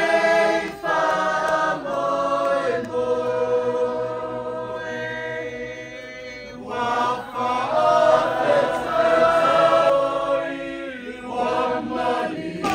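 A group of voices singing together in long held notes, softer for a few seconds in the middle.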